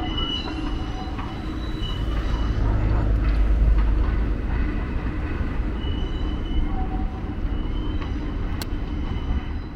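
Diesel-hauled Bhakra-Nangal passenger train running past, a steady low rumble that swells toward the middle, with thin high tones coming and going and a single sharp click near the end.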